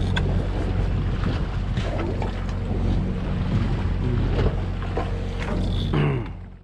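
Boat engine running steadily at low speed, with wind on the microphone and sea water washing around the hull. The sound drops away abruptly near the end.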